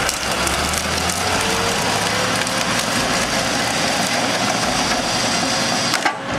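Wood-processing machine running under load: a steady engine with wood crunching and splintering, and scattered cracks. The sound dips briefly near the end.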